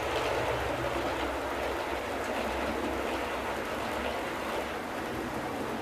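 OO gauge model diesel locomotive with a coreless motor running fast along model track: a steady rumble of wheels on rails and motor, a little louder near the start as it passes, over a low steady hum.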